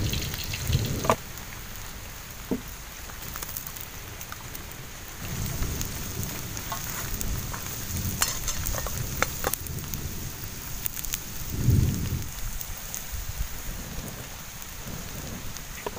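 Open wood cooking fire hissing and crackling under a wok and a pot of rice, with scattered clicks and a low rumble. About three quarters of the way through comes a short, louder puff, a breath blown onto the embers to fan the fire.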